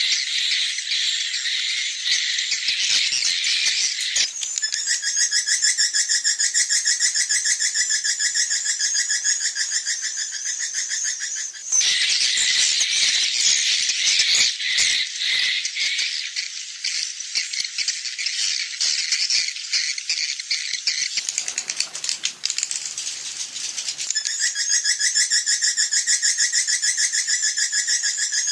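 Swiftlets twittering in a dense, rapid, high chirping chorus. This is a swiftlet-farming lure call of the evening roosting ('inap senja') type. The mix of chirps shifts every several seconds, with sudden changes about 4, 12 and 24 seconds in.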